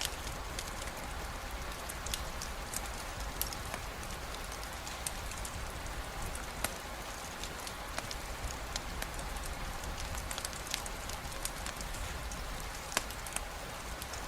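Steady rain with a constant hiss, broken by scattered sharp clicks of single drops landing close by.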